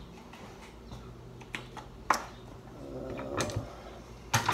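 Drill bits and a plastic drill-bit case being handled: scattered clicks and small knocks, with a short hum about three seconds in and a louder clatter near the end.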